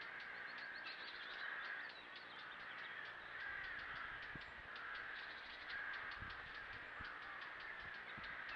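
Crows cawing over and over, about one caw a second, with a fast high ticking behind them.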